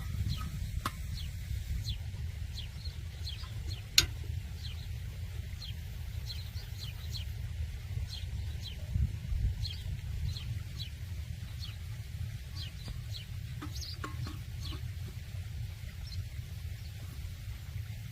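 Birds chirping in short, high, falling chirps, several a second, over a steady low rumble, with one sharp click about four seconds in.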